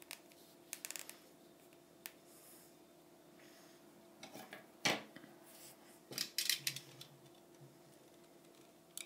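Light clicks and snaps of small hand tools and thin wooden skewer sticks being handled at a work table, with a sharper click about five seconds in and a quick run of clicks a second later, over a faint steady hum.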